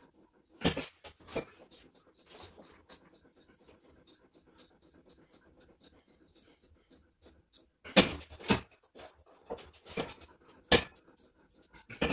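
Gym cable machine knocking and clanking during a hand-flexor pull: a couple of sharp knocks about a second in, faint scraping and rubbing after them, then a cluster of louder knocks in the last few seconds.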